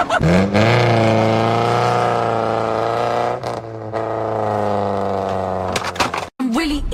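A car engine revving hard, its note rising and then holding at high speed as the car rushes past, with a short break about halfway through; it cuts off suddenly near the end.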